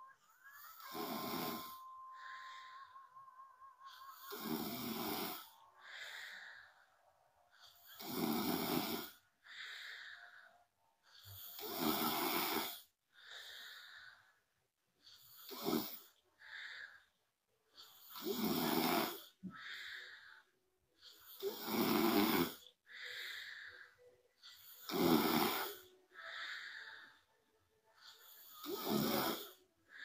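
A young woman snoring in her sleep: nine loud snores, about one every three to four seconds, with a softer breathy sound between each pair.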